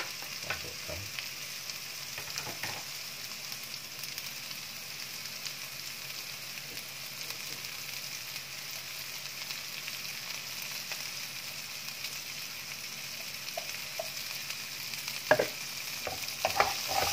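Sliced chilies, shallots and garlic sizzling in oil in a wok, stirred with a wooden spatula: a steady frying hiss, with a few knocks and scrapes of the spatula, loudest near the end.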